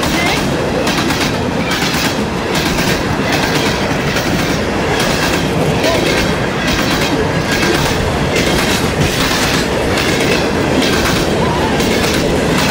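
Loaded rock train's freight cars rolling directly over the microphone between the rails: a loud, steady rumble with rapid repeated clacks from the wheels on the rails.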